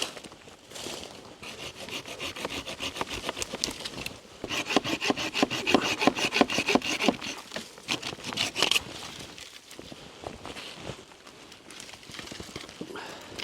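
Hand saw cutting through firewood in quick, even back-and-forth strokes. It starts about a second and a half in, is loudest in the middle, and stops about nine seconds in.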